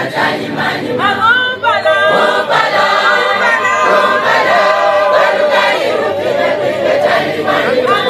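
A mixed church choir of men's and women's voices singing together.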